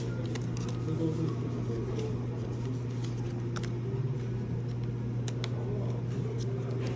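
A few faint clicks and light taps of small cardboard-and-plastic packaging being handled, over a steady low hum.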